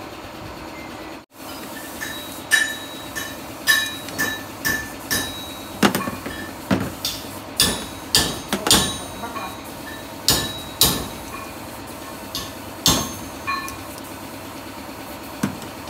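Many irregular, sharp metallic knocks, each with a brief ring, as metal steering hardware is struck with a tool during fitting. A steady low hum runs underneath.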